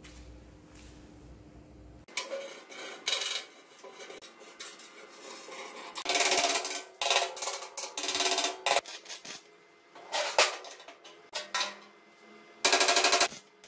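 Wire-feed (MIG) welder arc crackling in a string of short bursts on the steel frame, the longest lasting just under a second, with sharp metallic clicks between them.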